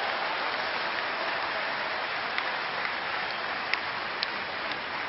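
Audience applauding steadily, tapering off slightly toward the end, with a few sharper claps standing out.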